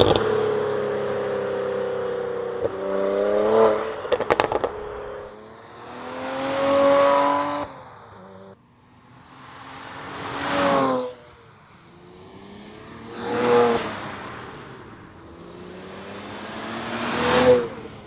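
BMW E92 335i's N54 twin-turbo inline-six, fitted with Vargas GC Lite turbos, running through a Turner Motorsport valved stainless exhaust with the valves open, in a string of hard drive-bys. A burst of sharp exhaust pops and crackles comes about four seconds in, followed by four more accelerating passes, each engine note rising in pitch and swelling to a peak before it drops away.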